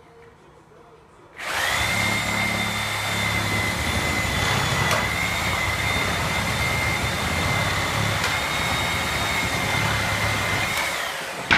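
Porter-Cable Tiger Saw reciprocating saw with a metal-cutting blade, cutting through the nails between pallet boards. It starts about a second and a half in and runs at a steady high whine for about nine seconds, then stops with a sharp knock.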